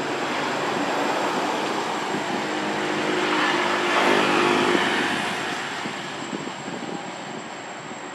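Engine noise of a passing motor vehicle: a steady rushing hum that swells to a peak about four seconds in, then fades.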